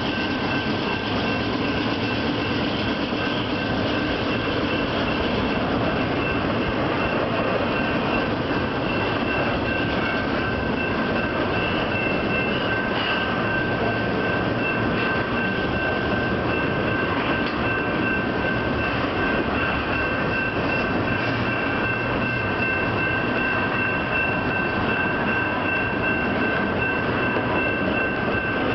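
Double-stack intermodal freight train rolling past close by, its well cars' wheels rumbling steadily on the rails. Over the rumble is a steady high-pitched wheel squeal, which grows stronger about a third of the way in.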